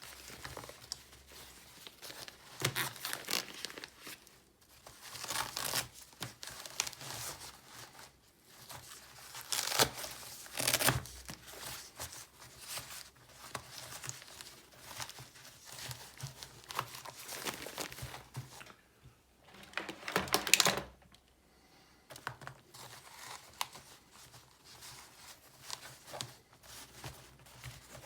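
Packaging being handled: irregular crinkling and tearing, with louder bursts about ten and twenty seconds in.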